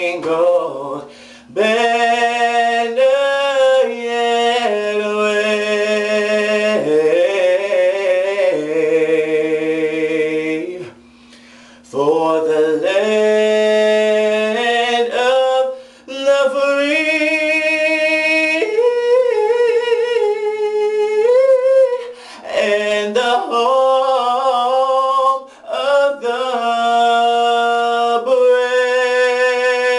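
A young man singing solo in a small room, holding long notes with wide vibrato and quick vocal runs, with a short break about eleven seconds in. A steady low tone sits underneath.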